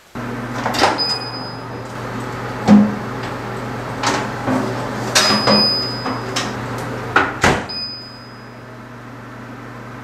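A built-in oven's door is opened, a metal chiffon tube pan on a metal baking tray is slid onto the rack with several knocks and clatters, and the door is shut with a knock at about 7.5 s. A steady low hum from the oven runs under it all.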